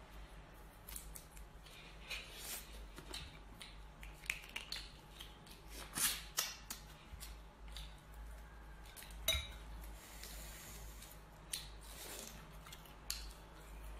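Boiled crayfish shells crackling and snapping as they are peeled apart by hand: irregular small clicks, with a louder crack about six seconds in and another about nine seconds in.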